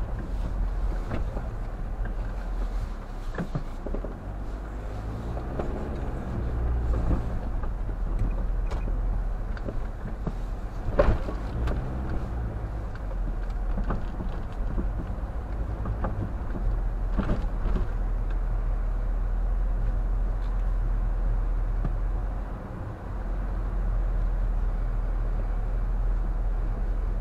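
Car driving slowly, heard from inside the cabin: a steady low engine and road rumble, with the engine pitch rising and falling now and then. A few sharp knocks come through, the loudest about eleven seconds in.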